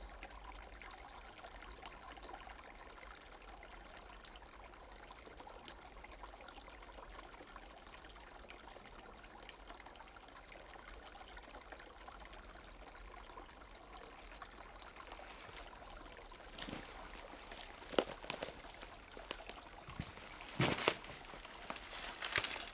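Small half-frozen forest stream trickling steadily where it spills past a fallen log. In the last several seconds a few sharp crackles and knocks stand out above the water.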